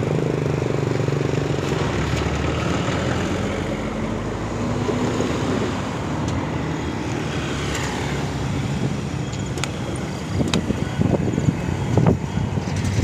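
Diesel-electric freight locomotive's engine running under power as the train passes, a steady drone, then a heavier rumble with irregular knocks toward the end.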